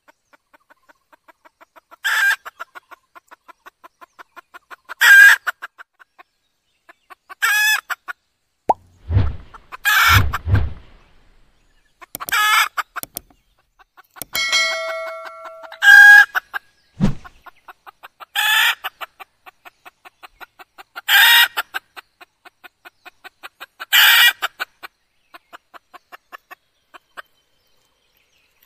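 Female red junglefowl calling: a short, loud call note every two to three seconds, with runs of soft, rapid clucks between them. This is a hen call used as a decoy to lure wild junglefowl. A few low thumps come about a third of the way in.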